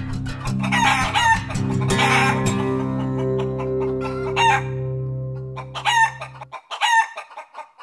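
Chicken calls, a run of short cries falling in pitch, over a held low musical chord that cuts off suddenly about six and a half seconds in. The calls thin out in the middle and come back strongly near the end.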